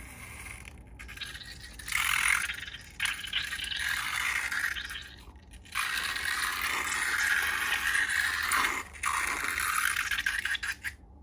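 Scraping, rattling noise in several long stretches with brief breaks, from slime-making materials being worked by hand.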